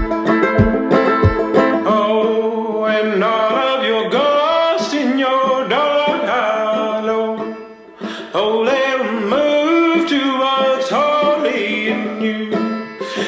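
Background music: a bluegrass-style song with banjo picking and a gliding melody line over it.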